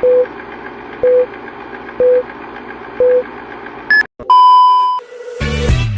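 Electronic countdown beeps: four short low beeps a second apart over a steady hum, then a longer, higher and louder beep, the start-signal pattern of a race countdown.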